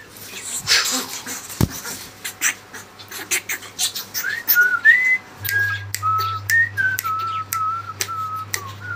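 A whistled tune of short held notes starts about four seconds in and runs on with small steps and slides in pitch. Underneath are quick clicks and feather rustling from an umbrella cockatoo moving and flapping its wings.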